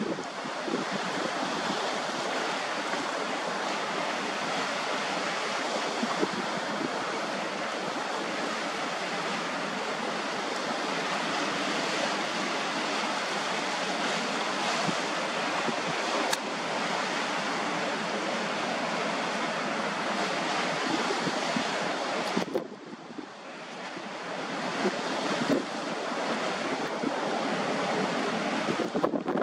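Steady rush of wind over the microphone mixed with choppy harbour water whipped into whitecaps. The noise drops suddenly about three-quarters of the way through and builds back up over a couple of seconds.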